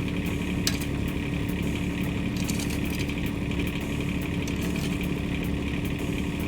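Mini excavator's engine running steadily at constant speed.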